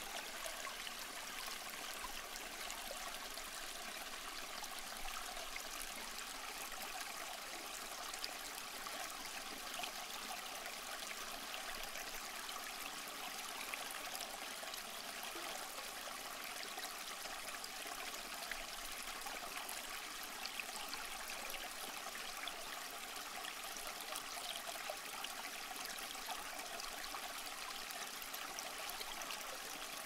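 Humidifier bubbling: a steady trickle of water with many small pops.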